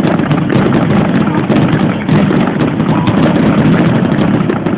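Fireworks crackling: a dense run of rapid pops and bangs blurring into one continuous loud rumble.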